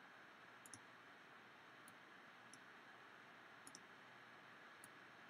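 Faint computer mouse clicks over near-silent room tone: a handful of single and double clicks about a second apart, made while stepping through the clip frame by frame and setting keyframes.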